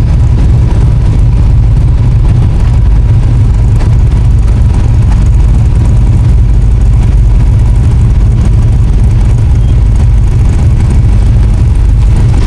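Off-road vehicle engine running steadily close by, a loud, unchanging low rumble.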